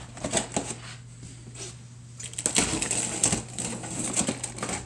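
A knife slitting the packing tape along the seam of a long cardboard shipping box: a few knocks of the box being handled, then from about two seconds in a crackling, ripping run of tape and cardboard being cut that stops just before the end.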